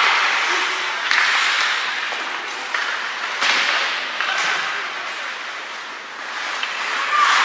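Ice hockey game in play: steady rink noise with swells of skates scraping across the ice, about a second in, again midway and near the end.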